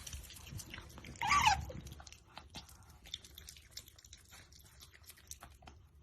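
Pet otter chewing and crunching food, a run of small sharp clicks, with one short high-pitched squeak from an otter about a second in.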